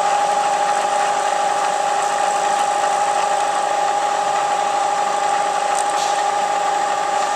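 Milling machine running, its cutter taking a conventional-milling test cut along the part: a steady high machine hum with cutting noise over it.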